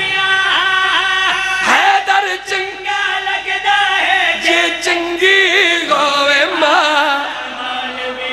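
An unaccompanied male voice chants a Punjabi devotional qasida into a microphone. The notes are long and wavering, with sliding ornaments between them.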